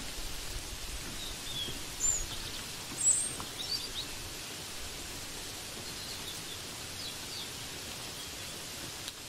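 Steady hiss of falling rain, with a scatter of short, high bird chirps over it; the loudest chirps come about two and three seconds in.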